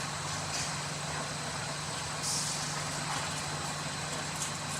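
Polyester wadding carding machine running steadily, with a low hum and a thin high whine. A short burst of hiss comes a little over two seconds in.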